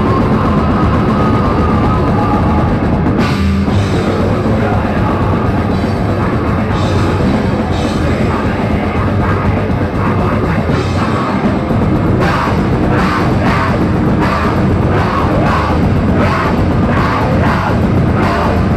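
Technical death metal band playing live at full volume: heavily distorted guitars and bass over a drum kit with cymbals. About twelve seconds in, the drums settle into an evenly pulsed pattern of sharp hits.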